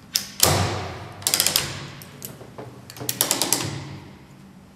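Orgapack OR-T 50 strapping tool's tensioning lever pumped by hand, its ratchet clicking as the plastic strap is pretensioned. A loud clack comes just under half a second in, then quick runs of clicks about a second and three seconds in, each trailing off in a rasp.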